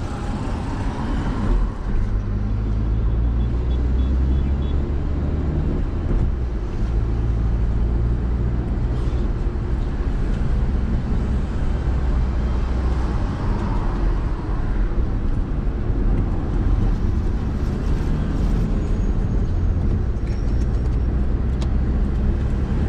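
Car engine and tyre noise heard from inside a moving car's cabin: a steady low hum that shifts a little in pitch with speed, over the rumble of city traffic.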